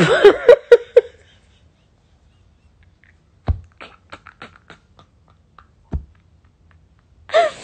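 A woman's breathy, nearly silent laughter: trailing voice at first, then after a pause a run of short wheezy squeaks and huffs. Two low thumps land in the middle and near the end.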